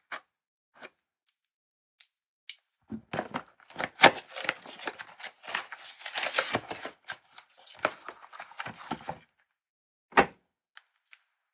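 Packaging being handled and opened by hand: a few sharp clicks, then about six seconds of crinkling, rustling and tearing, and a single thump near the end.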